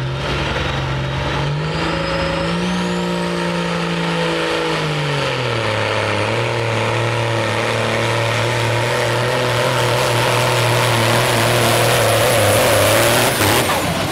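Semi truck's diesel engine hauling a weight-transfer pulling sled under full load. It revs up, holds, drops back to a lower steady pitch about five seconds in, and grows louder toward the end as it passes. A high whine climbs in pitch as it revs.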